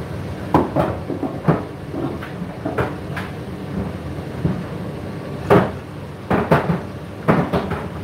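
Laundry tumbling in a household appliance drum: a steady low rumble with irregular thuds and knocks, the loudest about five and a half seconds in.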